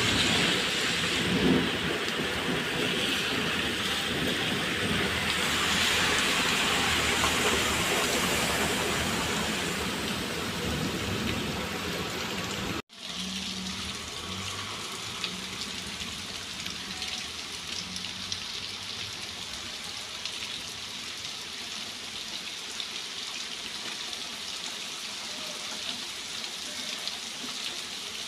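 Heavy rain pouring onto pavement, with runoff water streaming into a drain grate. About halfway through it drops abruptly to a quieter, steady rain hiss.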